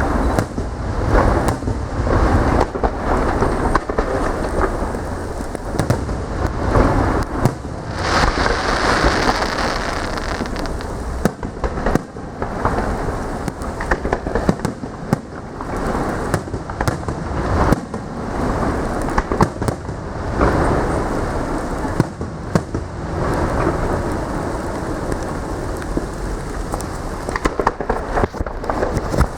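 Fireworks display: a rapid, continuous barrage of explosions with booms running into one another over a steady rumble, and a hissing crackle about eight seconds in.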